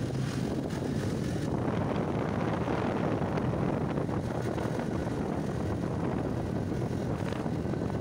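Motorcycle engine running steadily at road speed, with wind rushing over the microphone; the high wind hiss eases about a second and a half in.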